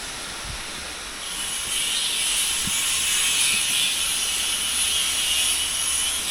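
Loud, steady hiss of compressed air from an air tool in a body and rust repair workshop, starting about a second in over a fainter background hiss.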